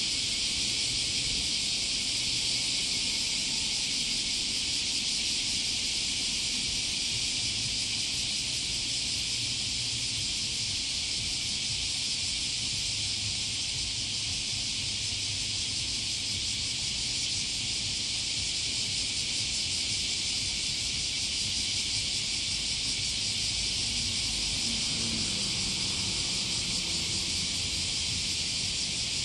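A steady, high-pitched hiss or sizzle that holds even throughout without a break, over a faint low rumble.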